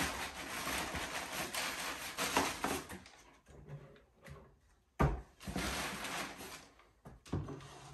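Crumpled packing paper rustling and crinkling as jars are packed into a cardboard box, with a sudden sharp knock about five seconds in, followed by more rustling.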